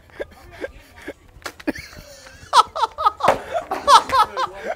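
A man laughing hard in quick, repeated high-pitched bursts, starting about halfway through, with a few sharp clicks and scrapes before it.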